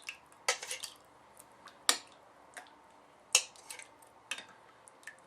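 A few separate sharp clicks and knocks of a kitchen utensil against dishware as enchilada sauce is poured into a casserole dish.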